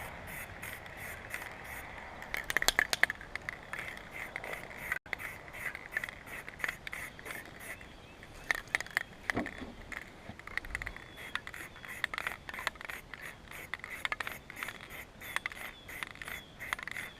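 Rhythmic hand scraping on a part, about three strokes a second, with a louder run of scrapes about three seconds in.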